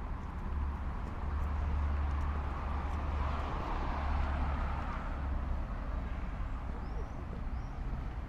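A motor vehicle passing on the street: a low engine rumble and tyre noise swell to a peak about four seconds in and then fade. A couple of short bird chirps come near the end.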